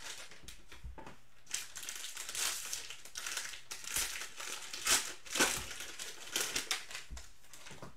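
Cellophane wrappers of Panini Prizm football card cello packs crinkling and crackling as the packs are handled and opened by hand, in irregular rustles loudest about five seconds in.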